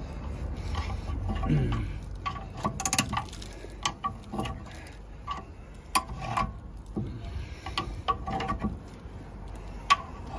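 Metal clicks and knocks of a screwdriver levering the rear brake caliper of a Skoda Octavia off its brake pads, at irregular intervals.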